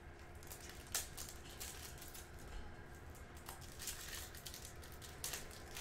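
Foil trading-card pack wrapper crinkling and cards rustling as a pack of Topps Chrome baseball cards is opened, in short scattered crackles about a second or more apart.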